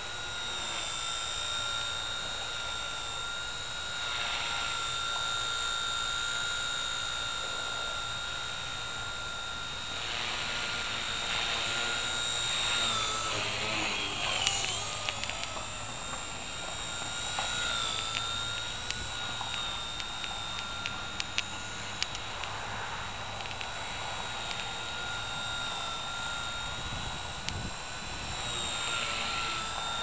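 Blade mCP X micro collective-pitch RC helicopter flying, its motor and rotor giving a steady high whine. The pitch wavers and dips briefly about halfway through, and a few sharp clicks come about two-thirds of the way in.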